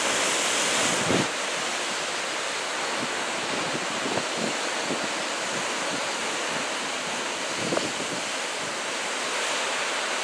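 Ocean surf from a typhoon swell washing and breaking steadily, with wind buffeting the microphone and a few brief low thumps.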